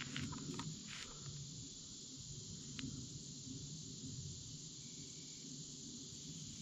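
Quiet woodland ambience with a steady low background hum and a few faint light clicks in the first second or so, one more near the middle, and a brief faint high thin tone a little later.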